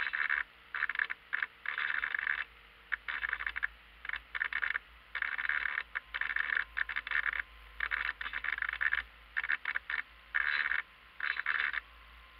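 Onboard radio-control servo motors on a Marblehead RC yacht whirring in short, irregular bursts as the steering and sail trim are adjusted. The bursts stop shortly before the end.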